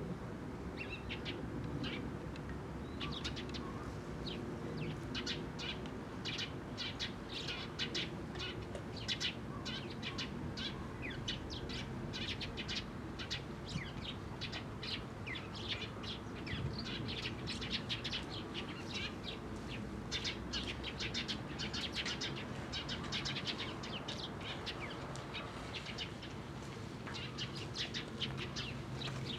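Eurasian tree sparrows chirping, a steady run of short, sharp chirps that keeps coming, many close together.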